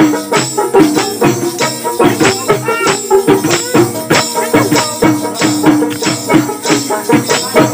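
Instrumental passage of Bengali folk music: a plucked dotara carries the melody over hand percussion with metal jingles, shaken and struck at about three strokes a second.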